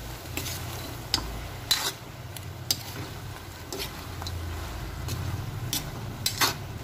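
Spatula scraping and knocking against a pan as stir-fried cabbage and shrimp are tossed: irregular sharp scrapes about once a second, the loudest near two seconds in, over a steady low hum.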